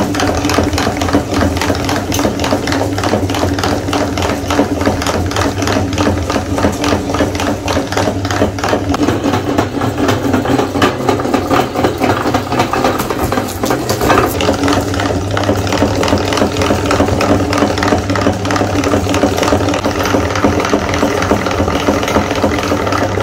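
Electric meat grinder running steadily, its motor humming under a dense, fast rattling crackle as the auger crushes chocolate-covered Snickers-style candy bars and pushes them out through the plate.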